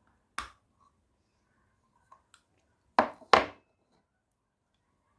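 Crunching of a thick, hard white slate-clay bar being eaten: one sharp crack about half a second in, two faint ticks a little after two seconds, then two louder crunches in quick succession about three seconds in.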